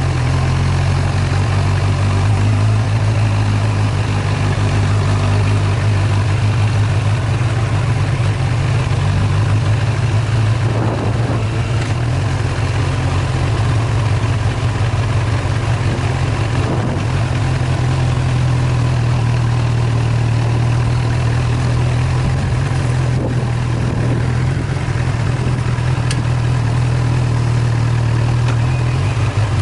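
Engine of the vehicle carrying the camera, running at a steady low pitch while driving along a sandy dirt track, heard from on board with an even hiss of wind and tyre noise over it.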